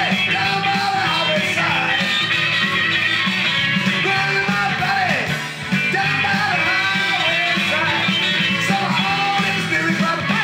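Rock band playing, with electric guitar over bass and drums and a voice singing.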